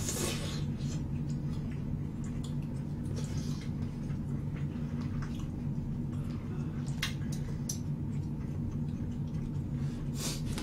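Close-miked wet chewing and mouth sounds of someone eating jjimdak (Korean braised chicken), with a few short sharp clicks scattered through, over a steady low hum.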